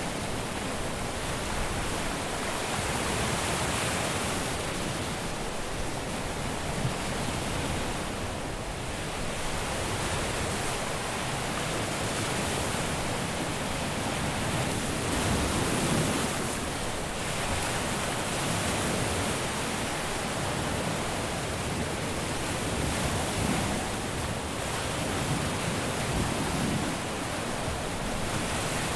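Caribbean surf washing continuously onto a beach, a steady wash of breaking waves that swells and eases gently every few seconds.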